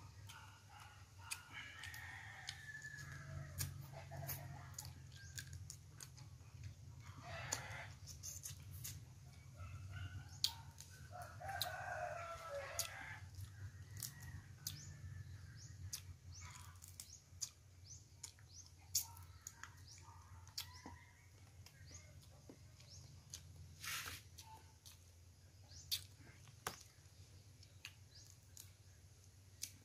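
A rooster crowing faintly a few times in the first half, with small sharp clicks and cracks of cooked crab shell being pulled apart by hand throughout.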